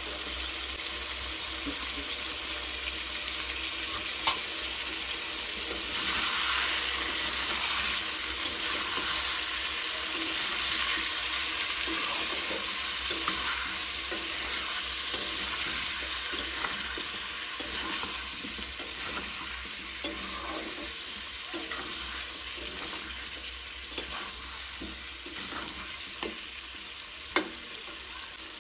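Chicken and potato curry frying in a pan and being stirred, with a steady sizzle that grows louder about six seconds in and eases toward the end. Sharp clicks of the stirring utensil against the pan come now and then.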